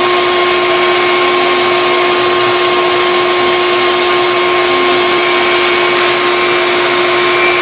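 Dremel rotary tool with a sanding attachment running steadily at high speed, sanding a glued-in wooden plug down to the curve of a guitar headstock.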